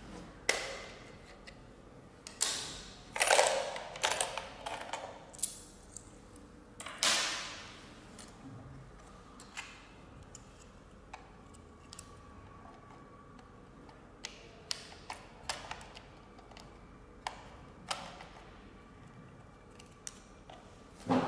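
Hard plastic clicks, knocks and scrapes as the battery cover on the underside of a plastic coin bank is unclipped, pulled off and handled. Several longer scraping rattles come about two to four seconds in and again around seven seconds, then scattered single clicks.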